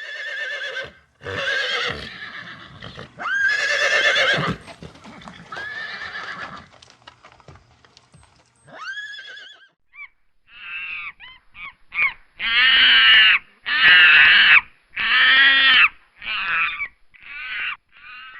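Horse neighing: a series of whinnies, each a wavering, pitched call about a second long with short gaps between. They come more quickly in the second half, where three loud whinnies in a row are the loudest part.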